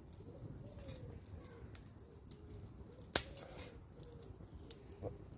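Wood fire crackling with scattered faint pops, and a sharp metallic clack about three seconds in, with a smaller one near the end, as the wire grill basket is handled and closed. A bird calls faintly in the background.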